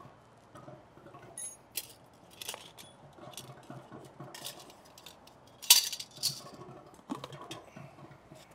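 Scattered metallic clinks and rattles of a pool light fixture's metal clamp ring being worked off the housing, with a short high ring about a second and a half in and the loudest clink just past halfway.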